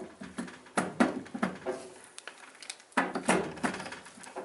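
Irregular metallic clicks and knocks of a Cummins 6.7 diesel piston and connecting rod being handled and fitted together by hand, loudest about a second in and again around three seconds in. The wrist pin is not meant to be a press fit but is binding.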